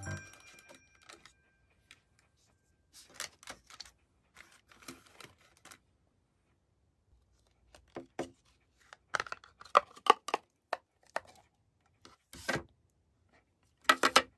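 Clear plastic trays and molds being handled and set down on a table, giving scattered clicks, knocks and rattles, the loudest ones near the end, with some rustling of a paper air-fryer liner.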